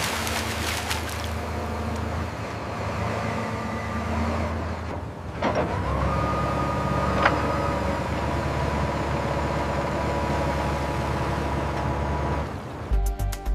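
A large engine running steadily, with a short dip about five seconds in. There are two brief sharp knocks shortly after the dip, and music comes in just before the end.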